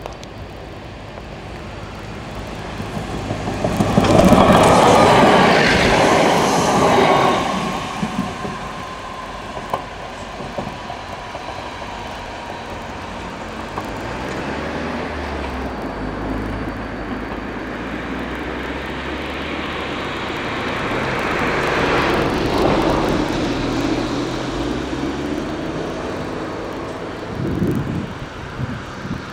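AKN diesel railcars passing close by: a loud rush of train noise about four seconds in, then the steady drone of a diesel engine that shifts in pitch and swells again a little past twenty seconds. A few sharp clicks of wheels over the rails come near the end.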